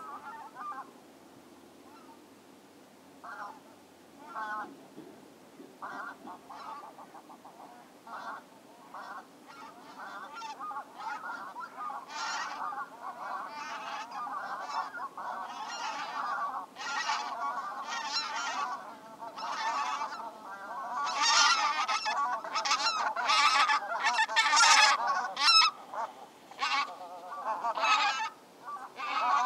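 Geese honking: a few scattered calls at first, swelling into a dense, overlapping chorus from about twelve seconds in and loudest a little past twenty seconds, as a flock flies in and comes down among tame decoy geese.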